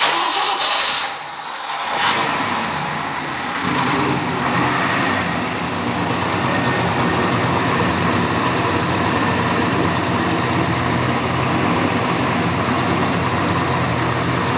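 Ford 352 V8 in a 1965 Mercury pickup starting up: a loud burst at the start, a brief dip about a second in, then it catches and runs steadily. The owner says the fuel pump is not working at all, so the engine is running on gasoline poured in by hand.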